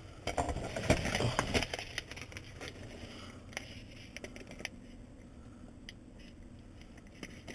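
Plastic garbage bags and packaging crinkling and rustling as items are handled, busiest in the first couple of seconds, then a few scattered light clicks.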